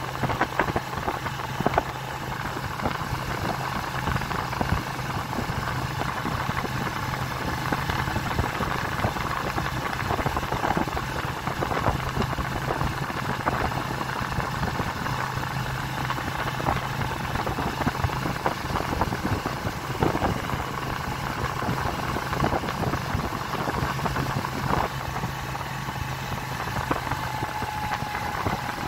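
Motorcycle engine running steadily while riding along at speed, with a constant low drone under rushing wind and road noise.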